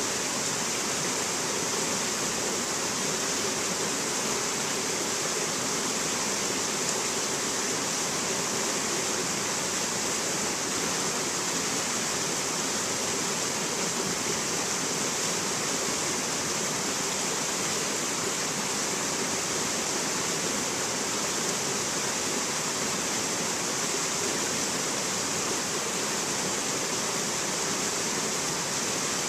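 Rocky mountain stream cascading over boulders and stones: a steady, unchanging rush of water with a bright hiss.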